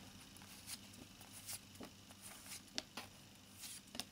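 Faint handling of thick, stiff tarot cards as they are slid and shifted one at a time through the deck: a few soft, scattered clicks and flicks of card against card.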